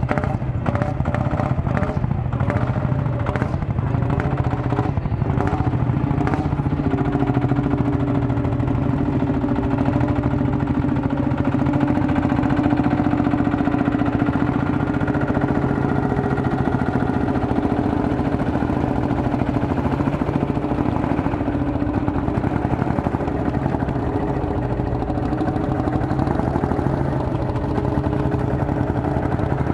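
Vintage Lanz Bulldog tractors' single-cylinder engines running steadily while pulling under load, with a run of sharp knocks in the first six seconds.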